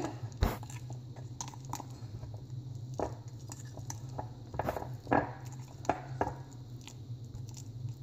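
Silicone spatula stirring thick chocolate cake batter in a ceramic mug: irregular soft scraping and squelching strokes against the mug, over a steady low hum.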